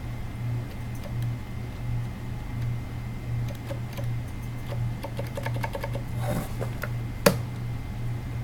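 Muffled, quiet keystrokes on a Katana-60 keyboard with 78g Zilents silent tactile switches, whose rubber dampeners soften both the downstroke and the upstroke. The keystrokes are sparse at first and come in a quicker run from about five seconds in, with one sharper, louder click near the end. Under them runs a steady low hum that throbs about once a second.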